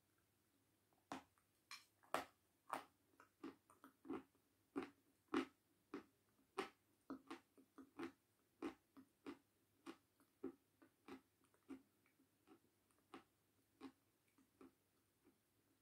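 A person biting and chewing something hard and crunchy close to the microphone: a steady run of crisp crunches, about one to two a second.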